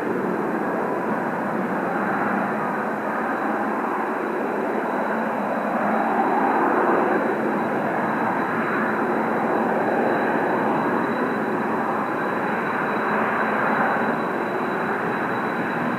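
Kawasaki T-4 jet trainers' turbofan engines, a steady jet roar from aircraft in flight, swelling slightly about six seconds in and again near fourteen seconds.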